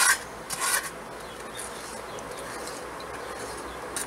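Spatula scraping leftover shortening and fried bits out of a cast iron pan: a few short scrapes in the first second, then fainter.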